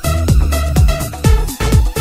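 Electronic dance music: a kick drum about twice a second under short, rhythmic synth chord stabs.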